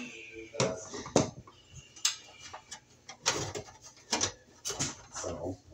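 Irregular light clicks and knocks as electrical wires are handled and pushed into the sheet-metal wiring compartment of an electric baseboard heater.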